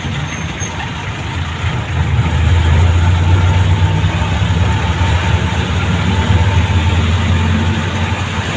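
Motor vehicle engine running with road noise, a deep steady hum that grows louder about two seconds in.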